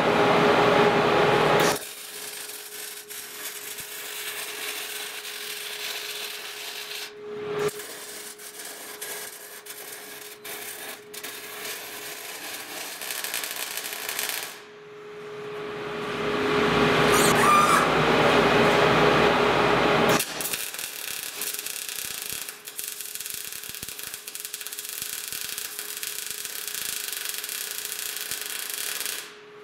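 MIG welder arc crackling and spitting in two long runs while steel filler plates are welded to a steel propeller-shaft tube. At the start and again in the middle, a louder steady noise with a hum takes over for a few seconds.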